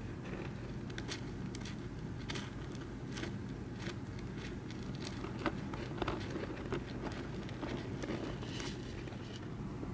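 Faint, irregular scratching and crackling of soil as a common rain frog burrows, over a steady low hum.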